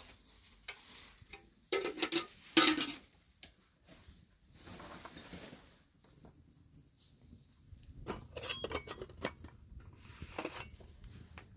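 Intermittent knocking and clatter of things being handled. The loudest cluster comes about two to three seconds in, and another group follows around eight to ten seconds.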